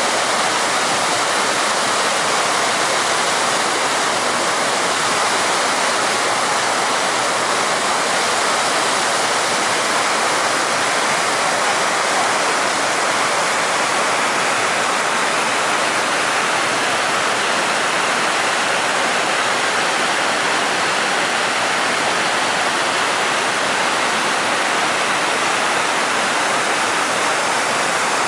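Steady rush of water flowing in a shallow stream, an even, unbroken hiss of running water.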